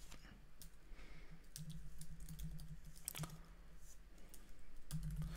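Computer keyboard typing: a handful of scattered, faint keystrokes over a low steady hum.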